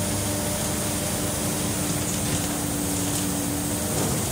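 Scania N94UB single-deck bus heard from inside the saloon while under way: its five-cylinder diesel engine runs with a steady drone over road and tyre noise, and the engine note changes about four seconds in.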